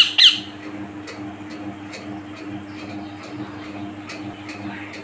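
Young green parakeet giving a sharp squawk that falls in pitch right at the start, then soft short chirps while it takes food, with a few faint clicks over a steady low hum.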